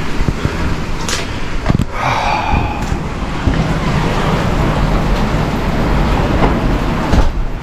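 Heavy rain pouring down in a steady rush of noise, with a few sharp knocks in the first three seconds.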